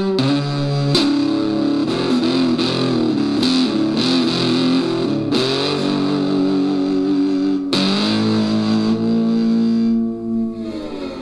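Electric cigar box guitar played through a small homemade cigar box amplifier: plucked notes and chords with wavering, bent pitches, changing about five and a half and eight seconds in, the last chord ringing out and fading near the end.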